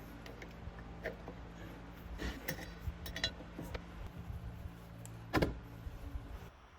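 Scattered light metal clinks and knocks of tools and parts being handled during brake and axle work, the loudest about five seconds in, over a steady low hum.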